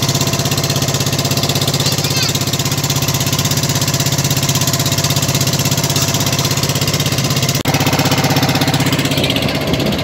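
Motorised outrigger boat's inboard engine running steadily under way, a loud, fast, even chugging throb.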